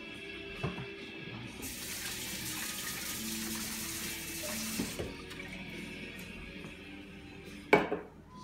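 Tap water running for about three seconds, then a single sharp knock near the end.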